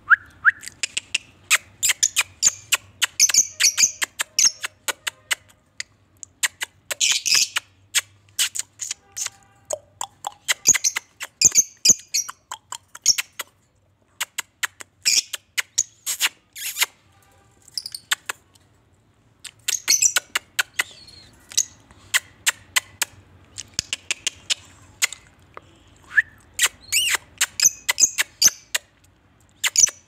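Fischer's lovebirds chirping: rapid, sharp, high-pitched chirps and squeaks in bursts, with short pauses between them.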